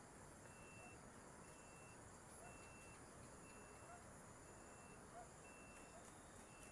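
Faint dusk chorus of insects: a steady very high whine, with a clear high note that repeats about once a second, each note lasting about half a second, and a few small chirps.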